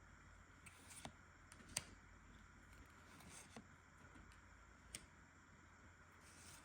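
Near silence with a few faint, sharp clicks and taps of Pokémon trading cards and packaging being handled, the sharpest a little under two seconds in.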